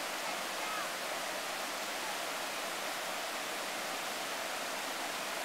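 River water rushing over and between boulders in small rapids: a steady, even rush of white water.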